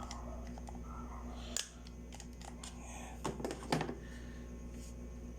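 Handling of small hard tool parts: a sharp click about a second and a half in, then a short clatter of clicks and rattles about three seconds in, over a steady low hum.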